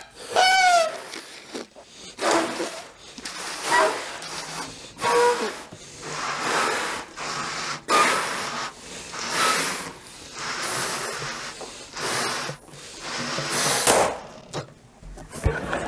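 Two people blowing up rubber balloons as hard and fast as they can. Strong gusts of breath come about every second, with short squeaks of stretching rubber at the balloon necks.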